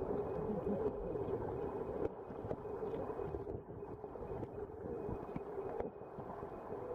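Muffled underwater ambience heard through a submerged waterproof camera's microphone: a steady rush of moving water with a few faint clicks.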